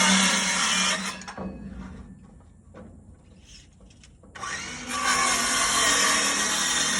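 A power tool running steadily under load with a low hum. It stops about a second in, leaving a few faint knocks, then starts up again after about four seconds.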